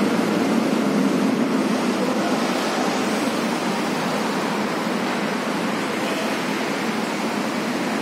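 Steady, even rushing noise of a downtown city street, with no single event standing out.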